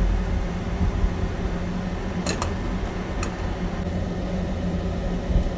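Steady low hum of a kitchen fan, with a few light clinks about two and three seconds in as winter melon pieces go into the pot.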